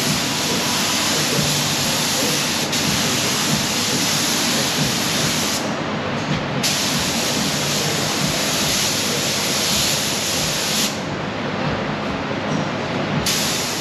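Paint spray gun spraying clear coat onto motorcycle saddlebags, a loud steady hiss in passes. It stops about five and a half seconds in, runs again for about four seconds, and gives one last short burst near the end, over a steady low hum.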